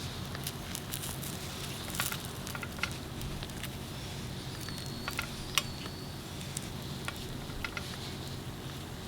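Food sizzling as it cooks, with scattered sharp crackles and pops throughout.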